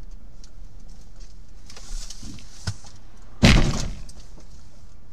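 A vehicle collision: one loud impact about three and a half seconds in, fading over about half a second, over a steady low road rumble, with two smaller knocks shortly before it.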